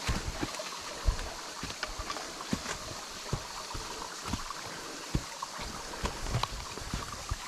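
Low-flow waterfall trickling and splashing into a stream, a steady watery hiss. Irregular low thumps and a few clicks sound over it.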